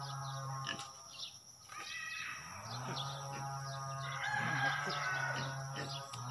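A rooster crowing, with the longest crow about four seconds in, over a steady low hum and small bird chirps.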